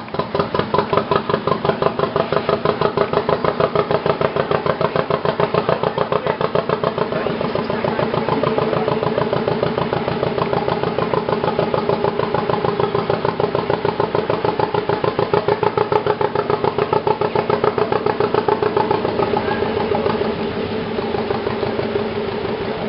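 Narrowboat's diesel engine running slowly, with an even, rapid beat of about five pulses a second, easing a little near the end.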